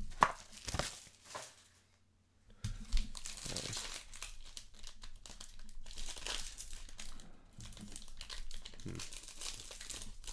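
Foil trading-card pack being torn open and crinkled by hand: a crackling, crinkling rustle of the foil wrapper that runs on steadily from about three seconds in, with a sharper rip near the start of it.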